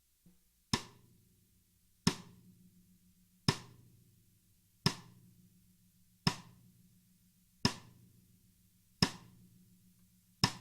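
Tama Artwood solid maple 14x8" snare drum struck with single, evenly spaced strokes, about one every second and a half, after a soft tap near the start. Each hit cracks sharply and leaves the drum ringing with a low tone that dies away before the next stroke.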